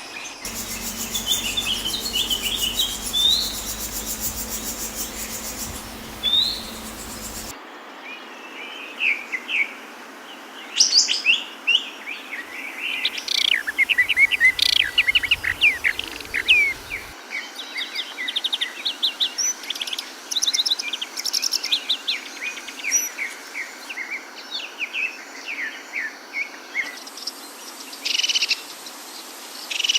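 Several songbirds chirping and singing in quick, varied notes, with a fast high pulsing buzz under them for the first several seconds. The background changes abruptly a few times, as separate recordings follow one another.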